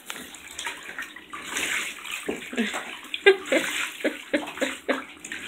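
Partly grown Orbeez water beads squelching and shifting around a person's body in a bathtub, a wet rustle with many small clicks.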